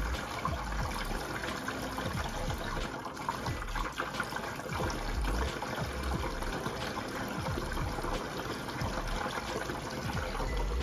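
Water from a hose running through a corrugated inlet pipe into a plastic water tank, a steady fill with the tank nearly full.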